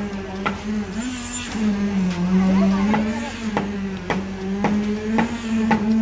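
Concrete pump and poker vibrator running during a slab pour: a steady machine hum that sags in pitch now and then, with a sharp knock about twice a second.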